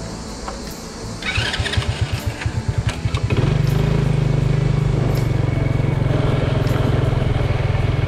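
Motorcycle engine being started: about two seconds of uneven cranking pulses, then it catches and runs steadily.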